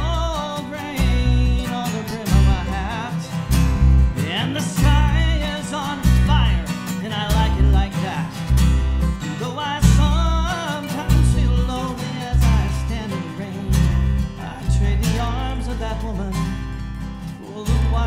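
Live folk-country band playing: an acoustic guitar strummed over a pulsing bass line, with a male voice singing the melody.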